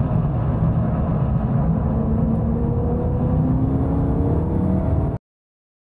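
BMW E92 M3's V8 engine running hard under load, its note climbing steadily in pitch as the car accelerates, over road and wind noise. The sound cuts off abruptly about five seconds in.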